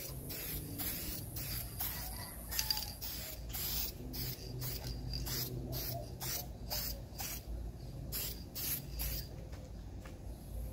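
Aerosol spray-paint can hissing in short repeated bursts, about two a second, laying a light coat of black paint on a steel grill barrel; the bursts stop about a second before the end.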